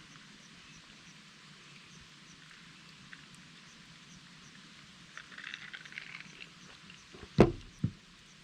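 Campfire crackling with small pops, then two dull knocks close together near the end.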